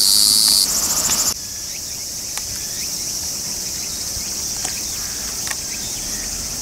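Cicada singing up close: a loud, steady high-pitched buzz that breaks into rapid pulses and stops about a second in, leaving a fainter steady high hiss of insects in the background.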